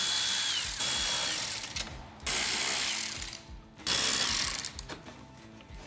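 Power ratchet with a 10 mm socket spinning out the belly-pan bolts, in three or four short runs. Each run is a rattling buzz with a high motor whine that drops away as the trigger is released.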